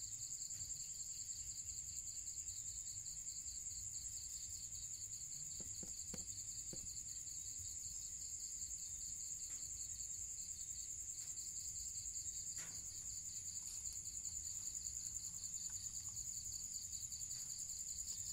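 Night insects trilling without a break: one steady high-pitched trill over a lower, rapidly pulsing one. A few faint knocks come about six seconds in and again a little past the middle.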